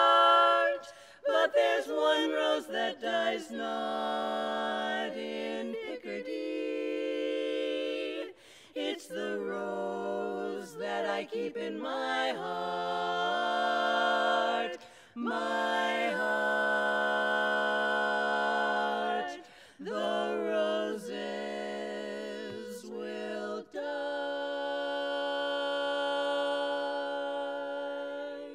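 Women's barbershop quartet singing a cappella in four-part close harmony: long held chords broken by short pauses between phrases. The last chord stops at the very end.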